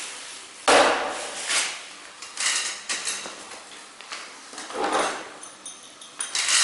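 Tools and parts of a drill kit being handled in its plastic carrying case: a sharp knock about a second in, then scattered knocks and rattles, and a denser clatter with metal pieces clinking near the end.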